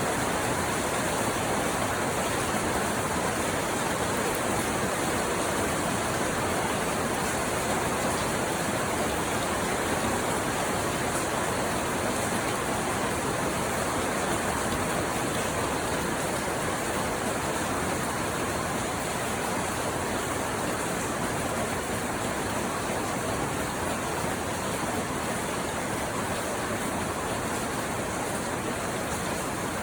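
Steady rain falling, a dense even hiss with no separate drops or other events standing out.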